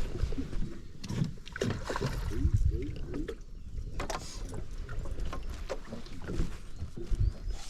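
Irregular knocks, bumps and creaks of a small wooden longtail boat moving on the water, with low thumps against the hull.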